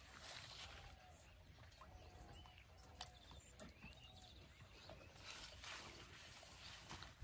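Near silence: faint outdoor ambience with a few soft bird chirps.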